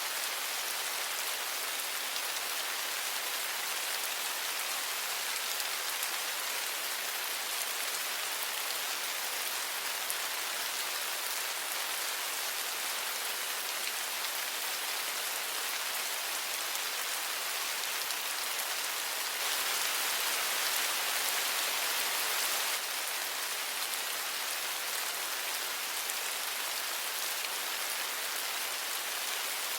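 Steady rain falling in an even, dense hiss, which grows slightly heavier for about three seconds around twenty seconds in.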